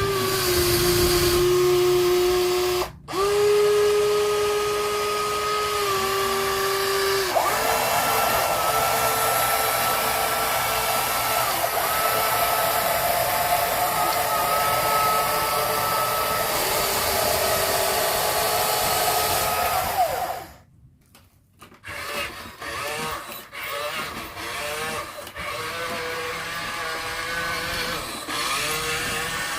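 Small electric motors and gears of radio-controlled model construction vehicles whining steadily, the pitch shifting in steps as they work, with a brief cut-out about three seconds in. About twenty seconds in the whine stops and gives way to quieter, irregular clicks and rattles.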